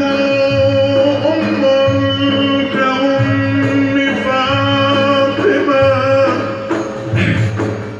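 Live Turkish Sufi ilahi music: a male voice holds a long, wavering, ornamented line over frame-drum and low instrumental accompaniment, the voice dropping out a little after six seconds in.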